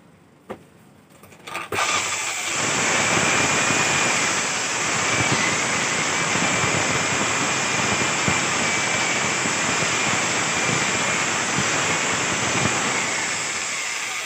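Corded electric drill running steadily under load as it bores a concealed-hinge cup hole into plywood, a steady motor whine over the cutting noise. It starts about two seconds in and eases off near the end.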